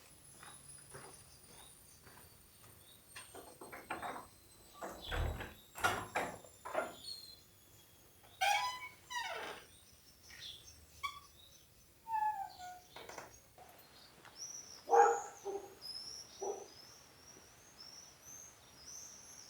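Songbirds calling, with a run of quick high chirps in the last few seconds, over scattered taps of a hiker's footsteps on the trail and one low thump about five seconds in.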